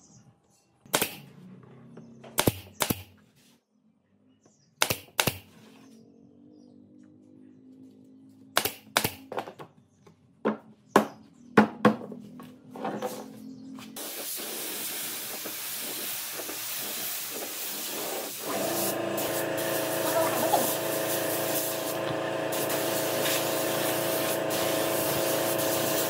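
A string of sharp, separate knocks and clicks from handling work in a woodshop. About halfway through a steady hiss sets in, and a few seconds later background music comes in under it.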